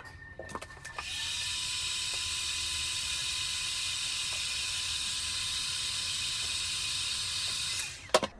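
Electric heat gun blowing hot air onto a freshly crimped wire terminal: it is switched on about a second in and its fan runs with a steady rushing hiss and a faint whine, which rises as it spins up and drops away as it is switched off near the end. A few sharp clicks come just after it stops.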